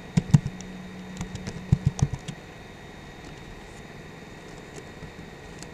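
Computer keyboard typing: a quick run of key clicks in the first couple of seconds, then it stops, leaving a steady low hum.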